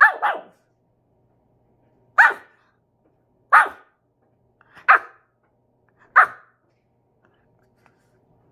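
Pomeranian puppy giving five short barks, spaced a second or two apart.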